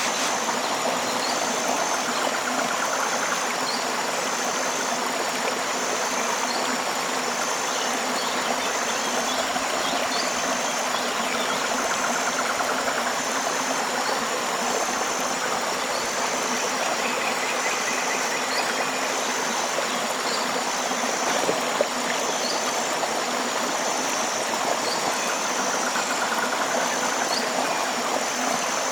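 River water flowing steadily. A high, short call repeats about once a second over it, with scattered faint chirps from tropical wildlife.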